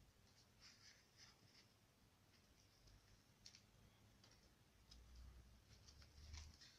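Faint, scattered small clicks and rustles of a foil-and-cotton-wool figure being handled and wrapped in thin bandage strips.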